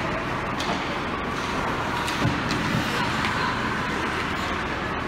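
Steady ice-rink background din during a youth hockey game, with a few faint knocks.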